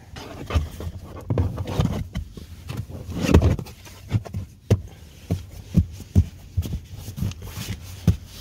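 Thumps and rubbing as a rubber all-weather floor mat is pushed and pressed into place in a car's footwell, with a run of short knocks about twice a second in the second half.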